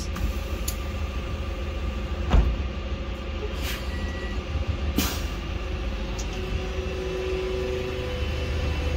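Volvo B5LH hybrid bus standing at a stop: a steady low hum with a few sharp clicks and short hisses of air from its air system, the sharpest hiss about five seconds in. The sound builds slightly near the end.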